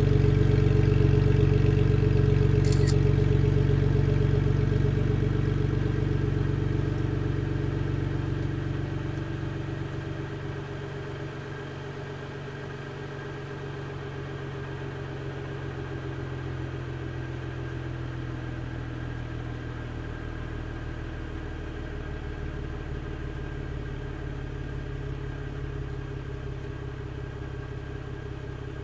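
BMW N52B30 3.0-litre inline-six idling after a cold start, heard at the tailpipes of a BMW Performance exhaust with a dummy middle silencer. The raised cold-start idle comes down between about four and twelve seconds in, the exhaust getting clearly quieter, then holds a steady lower idle.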